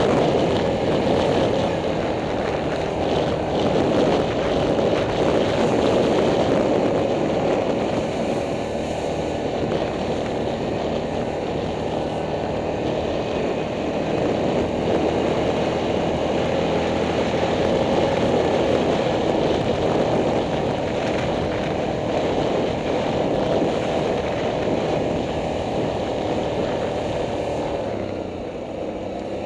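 Yamaha Grizzly ATV engine running steadily while riding, easing off slightly near the end.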